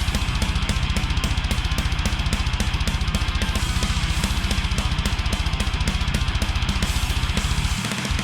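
Death-metal mix: a heavily distorted electric guitar through an Acid Rain Pedalworks Judas HM2-style and fuzz blend pedal, set for a buzzing Swedish chainsaw tone, over drums with rapid, even double bass drum and cymbals. The fast kick drumming stops near the end.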